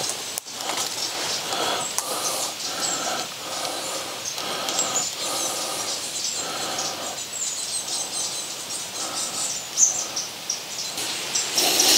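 Outdoor ambience with animal calls repeating several times in the first half, and high bird chirps scattered throughout.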